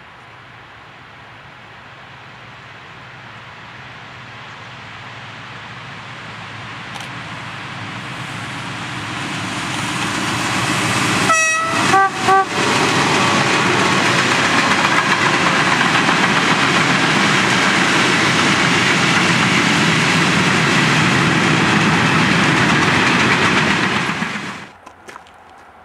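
Locomotive-hauled freight train of long covered wagons approaching, its rumble growing steadily louder. About eleven seconds in the locomotive sounds a short horn blast that drops to a lower note. The wagons then roll past loud and steady, until the sound cuts off suddenly near the end.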